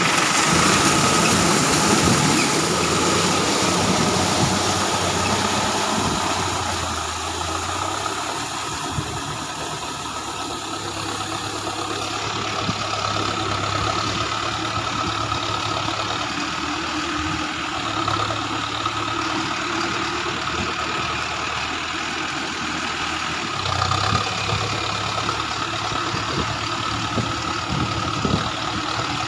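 Mahindra Arjun Novo 4WD tractor's diesel engine running steadily while it pulls a rotavator through wet paddy mud. It is louder for the first few seconds, then lower and even.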